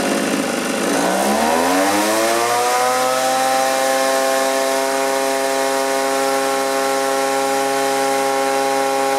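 Two-stroke engine of a Homelite-built GreenMachine backpack leaf blower, repaired and running: it is revved up about a second in, its pitch climbing and then holding steady at high speed over a rushing hiss.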